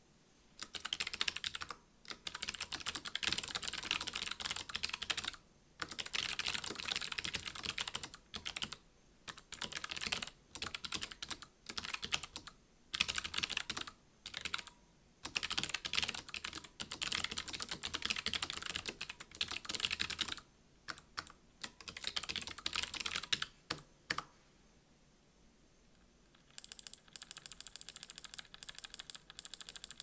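Typing on a Hexgears X-1 low-profile mechanical keyboard with clicky Kailh Choc White (PG1350) switches: bursts of fast clicking keystrokes with short pauses. After a pause of about two seconds near the end, one key is tapped over and over in a fast, even rhythm. These are switches whose actuation point sits just past the click, so some presses click without registering a keystroke.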